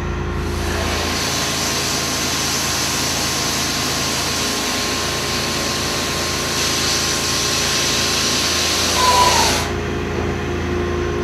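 Sandblasting cabinet's nozzle blasting abrasive at glass: a loud, steady hiss, etching away the bare glass that has been uncovered between taped areas. It starts just after the beginning and cuts off suddenly about a second and a half before the end, over a steady machine hum that runs throughout.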